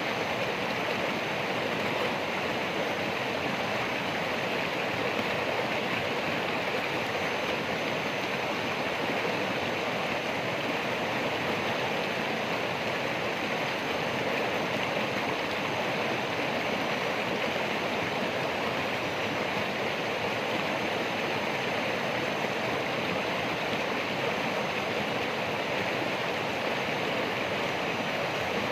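Running water rushing steadily, an even, unbroken wash of sound with no let-up.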